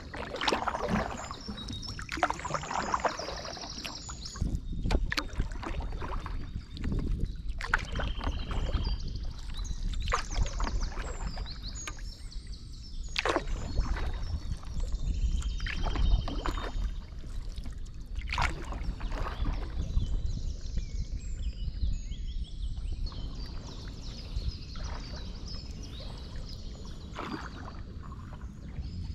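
Kayak paddle blades dipping into the water and splashing, a stroke about every two to three seconds.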